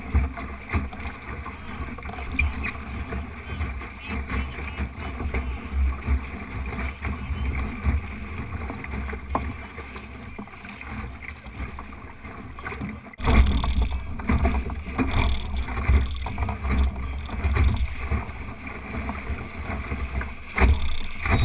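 Water rushing and splashing along the hull of an Optimist sailing dinghy under way, with wind buffeting the boat-mounted microphone in a low rumble. It gets abruptly louder about thirteen seconds in.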